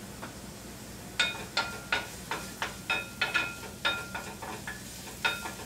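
A cooking utensil tapping and scraping against a metal skillet while chopped onions are stirred in oil: about a dozen sharp knocks from about a second in, many with a short ringing tone from the pan, over a faint sizzle.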